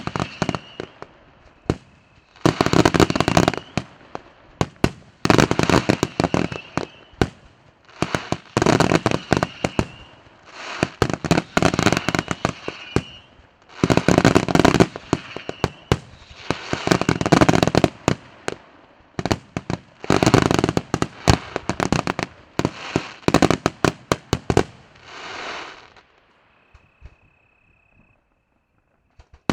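Fireworks display: salvos of shells bursting into dense crackling, each about a second long, coming every two to three seconds. Near the end there is one softer burst and a brief thin whistle.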